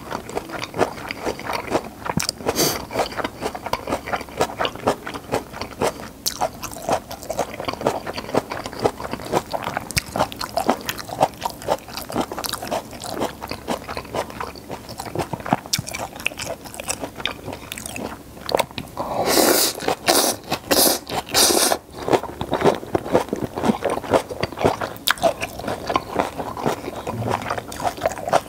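Close-miked eating sounds: chewing flower buns and japchae, with many wet mouth clicks and smacks. A louder stretch of sharper bursts comes about two-thirds of the way through.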